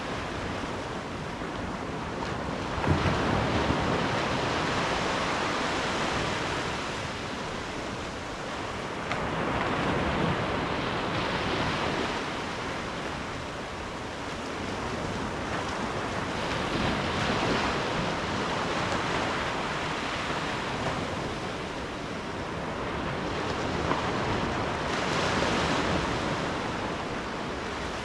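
Ocean surf breaking on the shore: a steady wash of water rising into a louder surge four times, about every seven to eight seconds.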